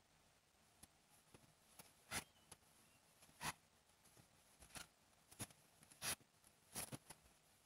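Faint scratching and rustling of cotton yarn drawn through loops by a metal crochet hook, in about seven short, irregular scrapes, as a front-post quintuple treble stitch is worked off.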